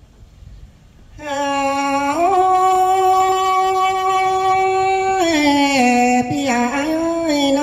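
A woman singing a Thai ethnic folk song (hát Thái) into a microphone. After about a second of quiet she comes in with a long note that rises in pitch about two seconds in and is held for some three seconds, then breaks into a wavering, falling ornamented line.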